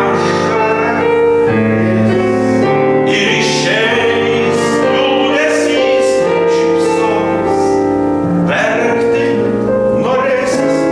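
A baritone singing in a classical style with piano accompaniment, holding long notes over the piano.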